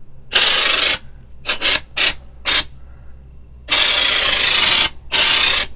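Compressed-air undercoating spray gun spraying an oil-and-wax mix in hissing bursts as the trigger is pulled and released: one longer burst, three short quick ones, then two longer bursts near the end.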